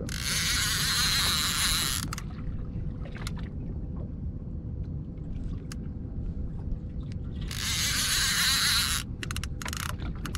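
A small boat underway, with a steady low rumble and a faint steady hum, broken twice by a loud high hissing buzz lasting about two seconds: once at the start and again about three-quarters of the way through.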